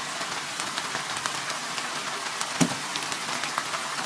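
Sardines in tomato sauce sizzling and crackling in a frying pan, with a single knock about two and a half seconds in.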